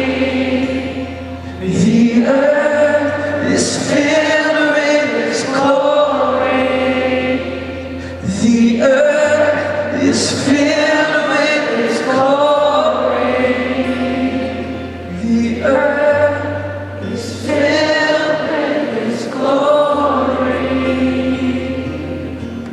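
Live worship song in an arena: sung voices, many of them together, over acoustic guitar and low bass notes, each held a couple of seconds.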